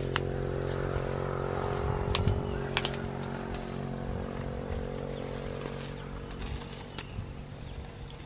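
A steady low motor-like hum that slowly fades, under a thin steady high tone, with a few sharp clicks a little after two seconds, near three seconds and near seven seconds.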